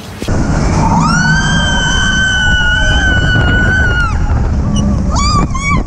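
Riders on the Expedition Everest roller coaster screaming over the steady rush of wind and the moving train. There is one long, high scream held for about three seconds, then shorter wavering yells near the end.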